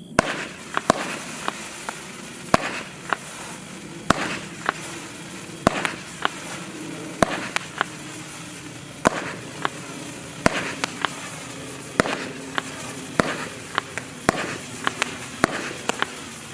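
Kimbolton Fireworks Swirling Whoosh, a 16-shot 20 mm firework cake, firing: a sharp bang every second or so, with a steady hiss of the whooshing, swirling effects between shots.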